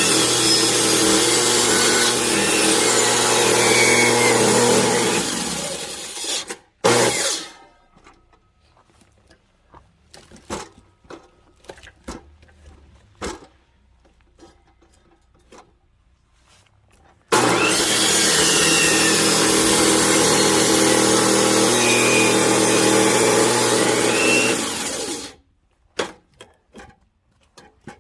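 A chainsaw cuts through firewood logs in two long runs at steady high revs, the first ending about six seconds in and the second starting about seventeen seconds in. Between and after the runs there are scattered knocks of wood being handled.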